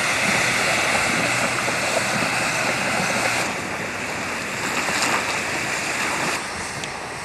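Steady rushing hiss of a steam vent in a geyser basin. It grows duller about three and a half seconds in and a little quieter near the end.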